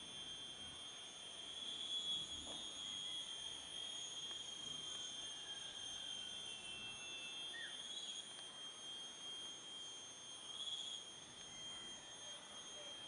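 A chorus of tropical insects trilling steadily in a high, even drone, with a few short faint bird chirps scattered through it.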